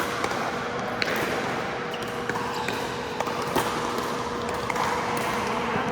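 Pickleball paddles hitting the hollow plastic ball and the ball bouncing on an indoor court: about eight sharp pops at irregular intervals over a steady hum of background noise.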